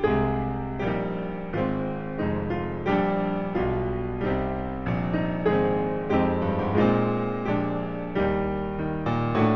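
Background piano music, with chords struck one after another and each left to ring and fade.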